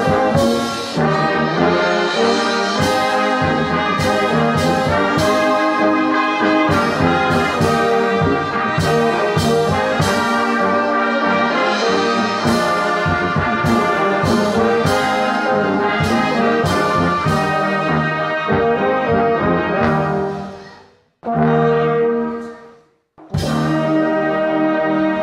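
Church brass band of trumpets, trombones and tubas playing a hymn. About 20 s in the music fades out, a short phrase sounds alone, and after a brief gap the full band comes back in near the end.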